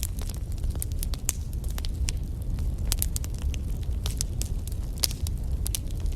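Wood fire burning in a fireplace: irregular crackles and sharp pops from the burning logs over a steady low rumble of the flames.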